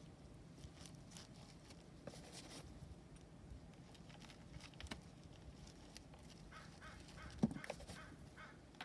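Faint crunching and rustling of coarse coco husk chips as gloved hands tuck and press them around a small potted Nepenthes. A run of short animal calls comes in near the end.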